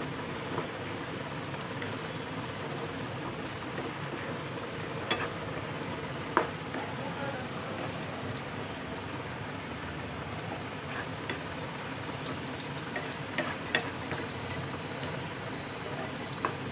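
Spatula stirring and scraping a thick coconut-and-sugar barfi mixture in a non-stick kadhai over the gas flame. A steady frying hiss runs under it, with a few sharp taps of the spatula against the pan. The mixture is coming together into a firm mass, the sign that the barfi filling is nearly done.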